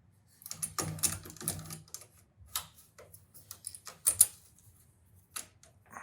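Irregular sharp knocks and clicks of hand-tool work at a freshly drilled mortise in a solid oak door. A quick run of strikes comes in the first couple of seconds, then single knocks, the loudest about four seconds in.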